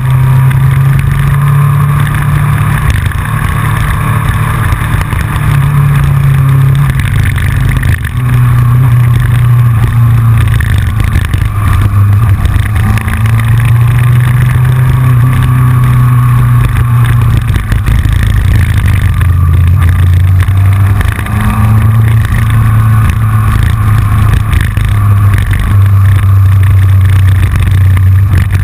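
Yamaha FJR motorcycle's inline-four engine running under changing throttle, its note stepping up and down, heard through a GoPro on the front fairing. A rapid clicking runs through it from the camera mount, which is not secure enough on the fairing.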